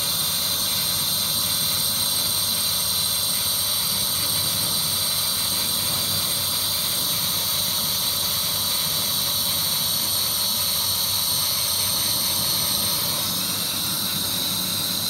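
Kamach CO2 tube laser cutter running a cutting job: a steady hiss of the air-assist jet at the cutting head, blended with the machine's fan and drive noise and two high steady whines.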